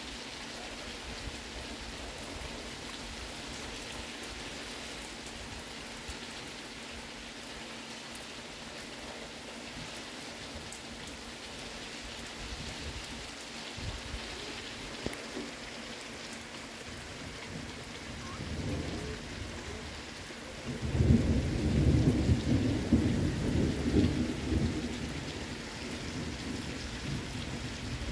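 Steady rain falling, with a roll of thunder about three-quarters of the way through: a faint low rumble first, then a loud rumbling that lasts several seconds and slowly dies away.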